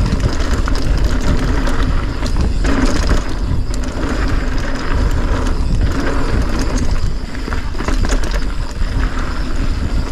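Polygon Siskiu full-suspension mountain bike rolling fast down a dirt trail: knobby tyres crunching over dirt and small stones with the bike rattling, under steady wind rumble on the camera microphone.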